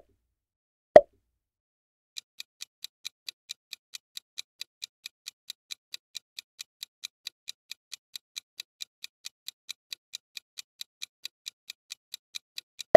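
A quiz countdown timer's ticking sound effect: light, high, evenly spaced ticks at about four a second, starting about two seconds in and running some ten seconds. Two sharp pops a second apart come before the ticking, and another pop at the very end.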